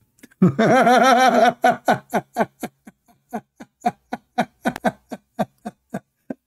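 A man laughing: a long wavering laugh, then a string of short laugh pulses at about four a second.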